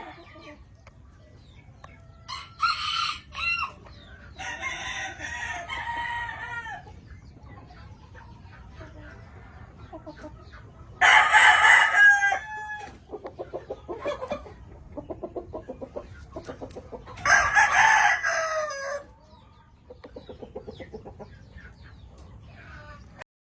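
Gamefowl roosters crowing in turn, some farther off and two loud close crows past the middle, with short runs of quick clucking between crows.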